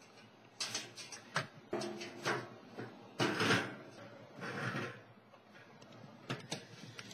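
Handling noise from a laptop with a built-in webcam being moved and repositioned: a string of knocks and rustles, densest in the first five seconds.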